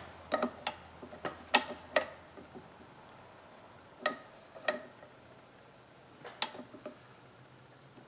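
Small steel tools and lathe parts being handled: sharp metallic clicks and clinks in small groups of two or three, several with a brief high ring.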